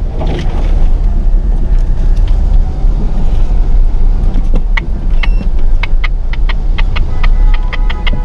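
Vehicle driving, with a heavy steady low rumble of engine and road noise. About halfway through, a quick run of short sharp ticks or yelps starts, several a second.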